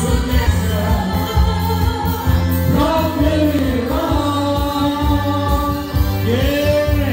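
A song with singing over a steady bass line, played loudly.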